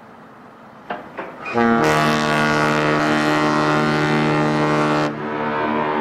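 Ship's horn sounding one long, deep blast of about three and a half seconds, after a few short blips. It then dies away in a lingering echo.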